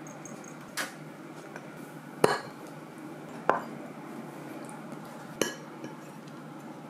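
Cutlery clinking on a glass serving plate: four short, sharp clinks a second or two apart, the loudest about two seconds in, over a low steady room hum.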